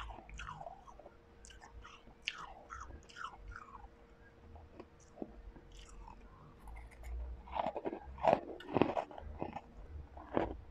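Crunching and chewing refrozen blended ice, with small crackling crunches in the first half and louder, denser bites from about 7.5 to 10 seconds in.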